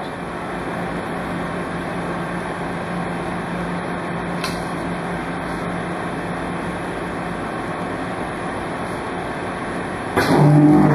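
Crest clamshell die cutter running with a steady hum, then, a little after ten seconds in, a louder machine sound of about two seconds, opening and closing with clicks, as the press cycles to cut a sheet of 5 mm corrugated plastic against a urethane cutting pad.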